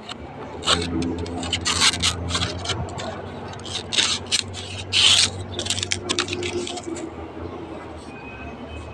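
A knife blade scraping along a coconut leaf midrib in a series of short, rasping strokes, stripping the leaf blade off to clean the stick for a walis tingting broom. The strokes stop about seven seconds in.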